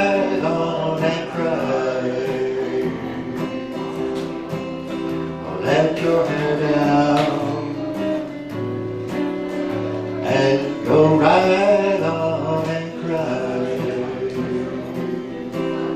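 Live song on acoustic and electric guitar: strummed acoustic chords under electric guitar lines, with a man singing at times.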